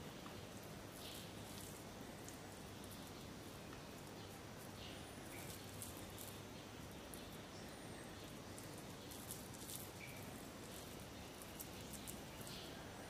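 Faint soft squishing and sticky taps of raw ground pork being pressed into small balls by hand and set down on a plate, coming every second or few, over a steady low hum.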